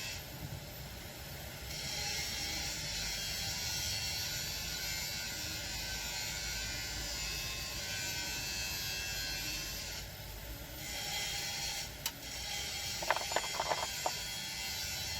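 Castrol 10W-40 semi-synthetic motor oil being poured into the engine's filler neck: a steady hiss that starts about two seconds in and pauses briefly near ten seconds. A few light clicks or knocks near the end.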